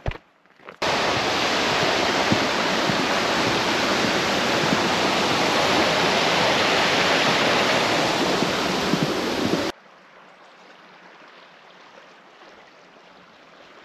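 Mountain stream pouring over a small stepped waterfall: a loud, steady rush of water that starts abruptly about a second in and cuts off suddenly near ten seconds. It is followed by a much quieter steady hiss.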